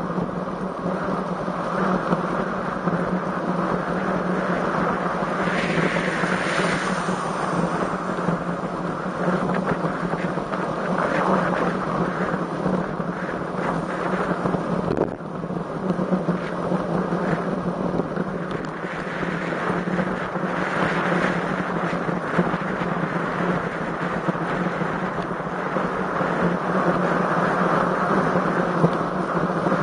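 Wind rushing over the microphone of a camera riding along on a road bicycle, an even, unbroken noise with a steady low hum beneath it.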